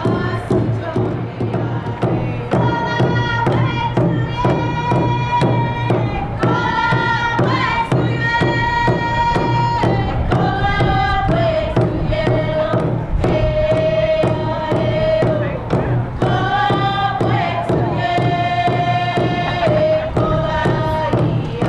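Large powwow-style drum struck in a steady, even beat under chanted singing in long held notes, the melody stepping down to a lower pitch partway through.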